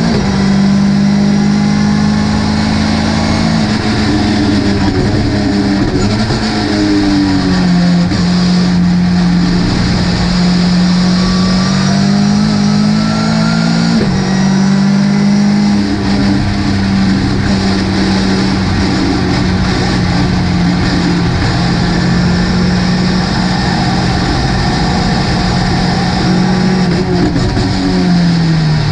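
Ginetta GT5 race car engine running hard. Its note falls and climbs with the throttle and gear changes, with a sudden change of pitch about halfway through.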